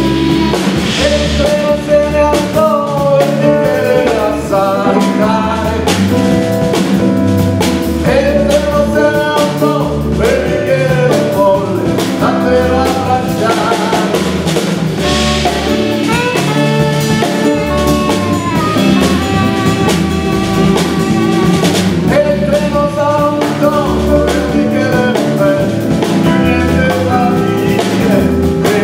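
Live rock band playing a song: a man singing lead over electric guitars, bass, drum kit and saxophone.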